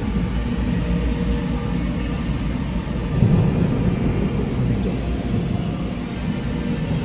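Steady low rumble of a car heard from inside its cabin as it creeps forward.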